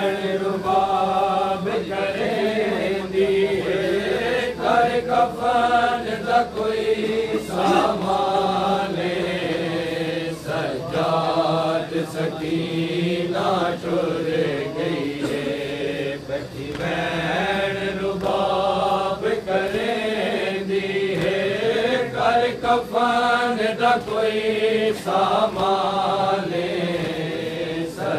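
Male reciters chanting a noha, a Shia mourning lament, in long sung phrases taken up by the group. Short hand strikes of chest-beating (matam) sound along with it.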